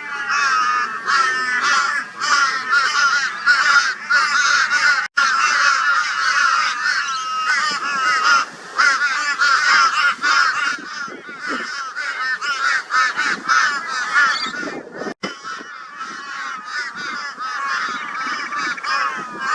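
A flock of crows giving loud, raucous calls over one another in a dense, continuous chorus: mobbing calls aimed at a barn owl.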